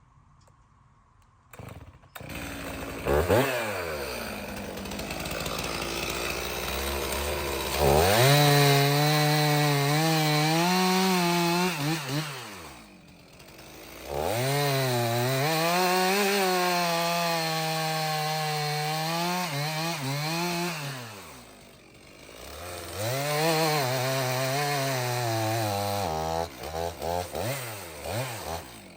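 Stihl 066 chainsaw's two-stroke engine starts about two seconds in, idles, then runs at full throttle in three long bursts through red oak, its pitch wavering and sagging under the load of the cut. It drops back to idle between bursts, and ends with a few quick throttle blips.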